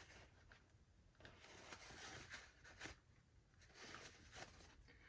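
Near silence with faint, intermittent rustling and rubbing: a paper towel wiping excess super glue off the plastic handle.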